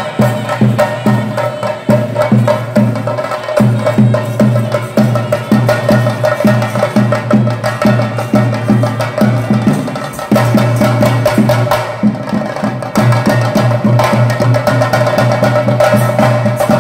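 Chenda drums beaten with sticks in a fast, steady Theyyam rhythm, dense strokes with a ringing tone held above them. The beat thins briefly twice, about three and a half and ten seconds in, then picks up again.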